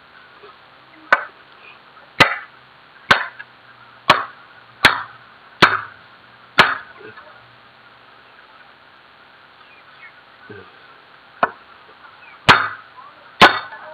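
Aluminium harvesting-pole pipe slammed end-down on a concrete floor to drive a wooden plug inside it. About seven sharp knocks come roughly a second apart, then a pause, then three more near the end.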